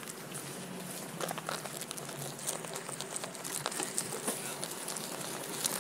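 Onewheel rolling across a grass lawn: a steady rustling hiss with many small scattered crackles and clicks.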